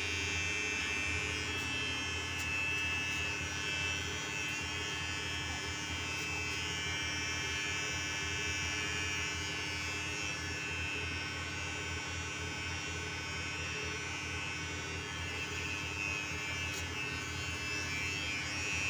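Electric hair clipper running steadily as it cuts a man's hair, a constant buzz.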